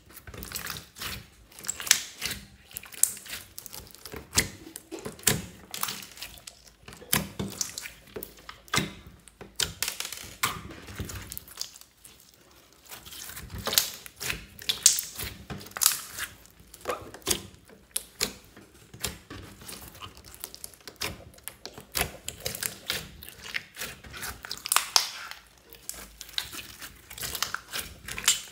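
Clear glitter slime squeezed, pressed and stretched by hand, giving off rapid irregular clicks, pops and crackles, with a brief lull about twelve seconds in.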